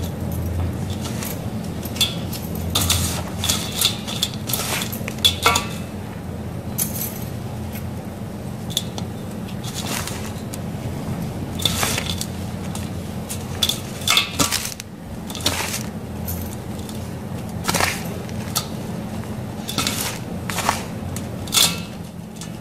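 Hands crumbling and sifting dry, gritty sand blocks in a glass bowl: irregular short crunches as the chunks break, and the hiss of fine sand pouring through the fingers.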